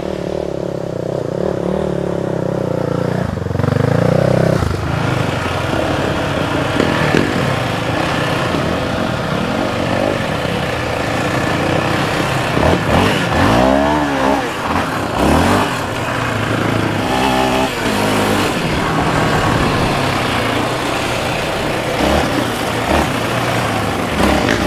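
Yamaha Raptor 700R ATV's single-cylinder four-stroke engine running while riding, its pitch rising and falling as the throttle is worked, with several quick rev swings around the middle.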